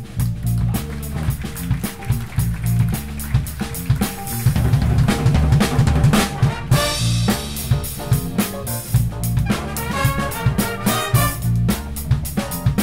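Live big band playing: a drum kit groove of snare and bass drum over electric bass, with the brass section playing louder from about halfway through.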